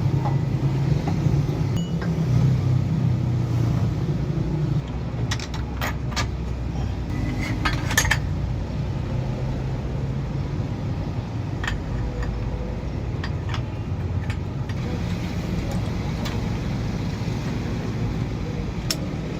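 Metal tools and parts clinking and clicking now and then over a steady low rumble, with a cluster of clinks about six to eight seconds in.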